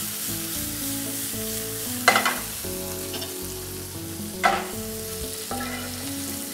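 Cherry tomatoes and olives sizzling in hot olive oil in a sauté pan, tossed and stirred as the sauce forms. A spoon knocks sharply against the pan twice, about two seconds in and again halfway through.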